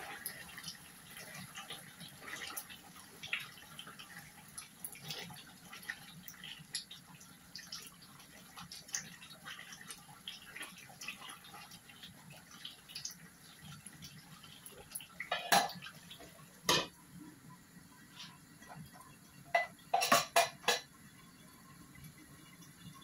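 Chicken curry bubbling and spitting as it cooks down in an aluminium pan while a spatula stirs it, with a steady patter of small crackles. In the second half come a few loud metallic knocks, and a cluster of clanks near the end as the lid is set on the pan.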